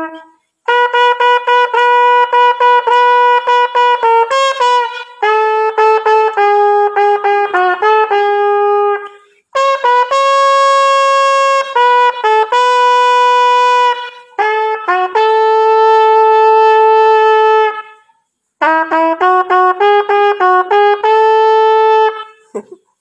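Unaccompanied trumpet playing a melody in several phrases, quick runs of notes mixed with long held notes, with short breaks for breath between phrases.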